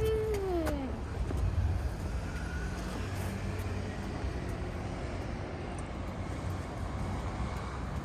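Steady low rumble of road traffic passing below. In the first second a short voice-like call rises and falls in pitch.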